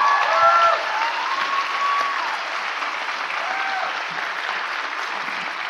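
Audience applauding, with a few cheering voices rising over the clapping in the first two seconds and once more briefly a little later. The applause is loudest at the start and grows gradually quieter.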